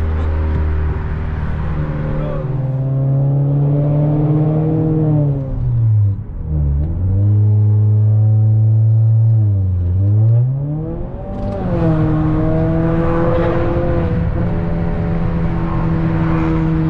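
Honda Accord 1.5-litre turbo four-cylinder with a catless downpipe and no resonator or muffler, running loud under way. Its note holds steady, dips and climbs back twice as the revs fall and rise, then settles steady again.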